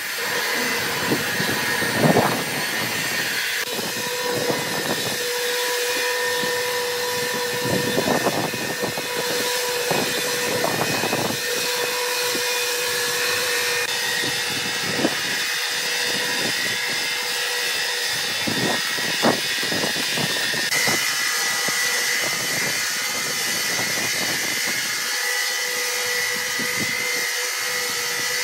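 Large horizontal band sawmill running: a steady machine whine and hum with scattered knocks and clatters, the sharpest about two seconds in and again near twenty seconds.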